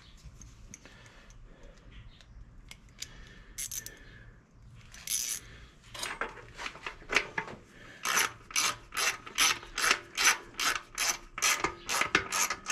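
Hand ratchet with a T20 Torx bit clicking as it runs in the screws of a fuel pump access plate: a few scattered clicks at first, then about halfway through a steady run of about three to four clicks a second.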